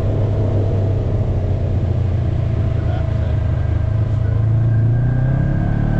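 ATV engine running at a steady speed, then revving up about five seconds in.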